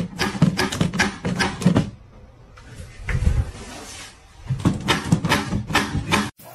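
Rapid hollow plastic knocking, about four knocks a second, from a cat tussling with a swinging white object on a grated plastic litter-box top. The knocking comes in two runs with a quieter gap and a single dull thump between them.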